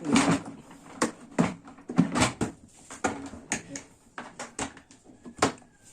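Irregular plastic clicks and knocks from handling and fitting the parts of a wet-and-dry vacuum cleaner, with the motor switched off.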